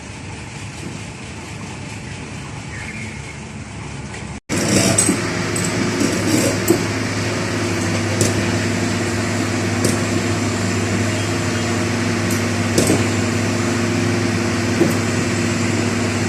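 Steady engine noise. About four seconds in, an abrupt cut brings a louder engine hum on a few steady low pitches, with scattered sharp clicks or knocks over it.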